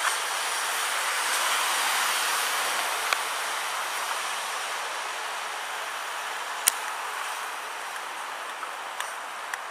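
A steady rushing hiss of outdoor noise that swells about two seconds in and slowly eases off, with a few faint clicks of the camera being handled.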